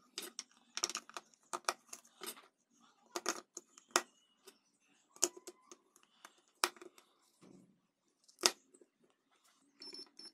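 Many sharp clicks and knocks at irregular intervals as 18650 lithium-ion cells are handled and pressed into a homemade battery holder against its metal contact strips. Two knocks, about four and eight and a half seconds in, are louder than the rest.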